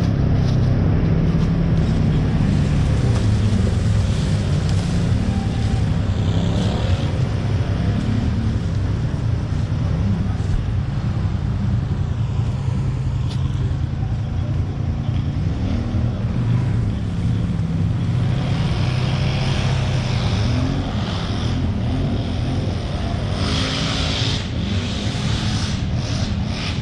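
Quad-bike (ATV) engine running as it is ridden, its pitch rising and falling with the throttle. A louder hiss joins in during the last several seconds.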